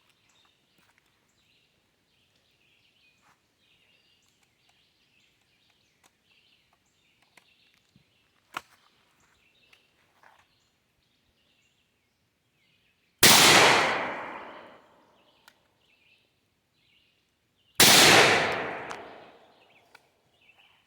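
Two shotgun blasts from a double-barrel shotgun, about four and a half seconds apart, each followed by a long echo that fades over about two seconds.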